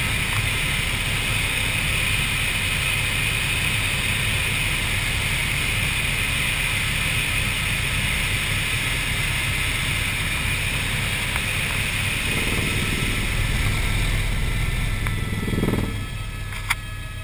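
Eurocopter AS350 B2 helicopter in flight heard inside the cockpit: a steady drone of rotor and engine with a high turbine whine. About sixteen seconds in the sound drops quieter as the helicopter banks, and a single sharp click follows.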